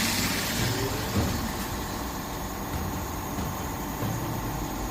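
Steady low mechanical hum and rumble of workshop machinery running.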